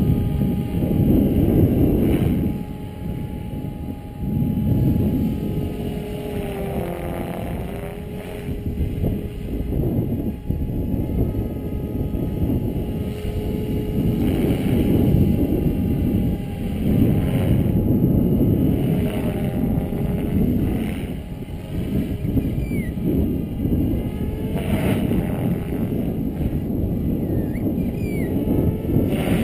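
Electric SAB Goblin 500 RC helicopter in flight: a steady motor and rotor whine whose pitch dips and wobbles for a couple of seconds during a manoeuvre. Under it, a loud, gusting rumble of wind on the microphone.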